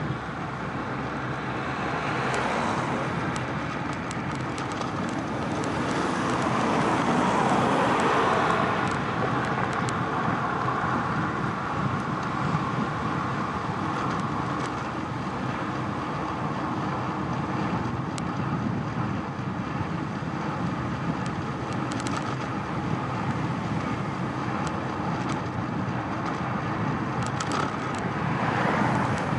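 Road traffic heard from a moving bicycle: a steady rush of wind and tyre noise, with vehicles swelling past a couple of seconds in, more loudly a few seconds later, and again near the end as an oncoming van goes by.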